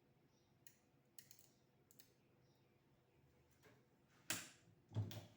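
A few light clicks of small hard objects being handled, then two louder knocks near the end.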